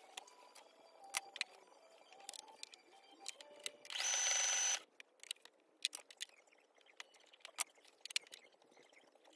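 Brother sewing machine stitching in one short run of under a second, about four seconds in. Around it, light clicks and rustles as the fabric is handled and repositioned under the presser foot.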